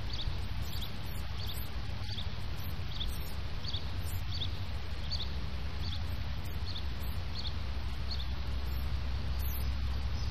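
Outdoor ambience: a steady low rumble, with a faint high chirp repeating about every two-thirds of a second.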